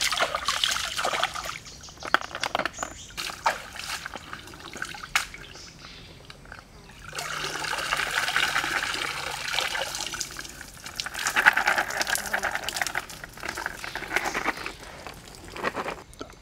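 River water splashing and pouring as freshwater snails are rinsed in a woven bamboo basket: hands splash water over the snails in uneven bursts, then, about seven seconds in, the basket is dipped and lifted and water streams out through its weave for several seconds.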